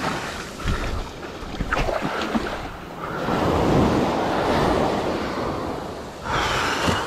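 Ocean surf breaking on a sandy beach: a wave crashes and washes up the sand in a long rush about three seconds in, and another surge of surf comes near the end, over a few faint knocks early on.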